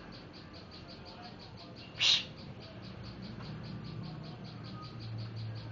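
Faint, rapid insect-like chirping, about seven short high pulses a second, with one short high-pitched burst about two seconds in.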